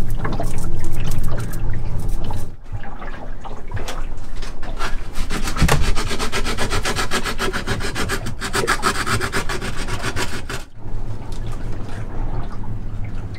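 Hand sanding of fibreglass laminate inside a boat's cupboard: rapid, rhythmic back-and-forth rasping strokes of abrasive on cured fibreglass. It starts after a brief stretch of a brush dabbing into wet resin, and gives way near the end to a low steady hum.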